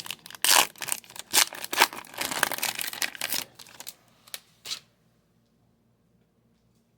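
Trading card packaging being torn open and crinkled by hand: a run of quick rips and rustles that stops about five seconds in.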